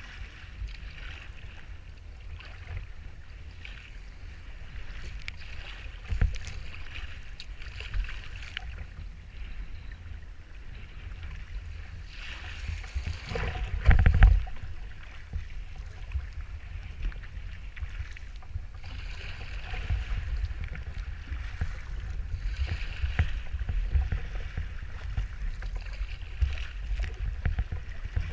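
Wind buffeting the microphone on a sea kayak's deck, with water splashing and hissing around the hull as it is paddled through choppy waves. About halfway through, a breaking wave washes over the bow in a loud rush of water.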